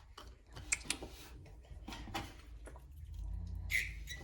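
Light clicks and taps of small plastic toy pieces being handled on a hard surface, a few sharp ticks in the first half, then a low rumble near the end.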